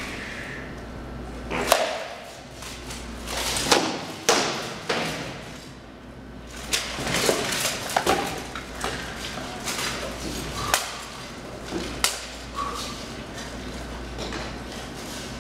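Armored sword-and-shield sparring: rattan sword blows cracking against a shield and armor in irregular strikes, several in quick pairs, with armor clattering and footsteps between them, echoing in a large hall.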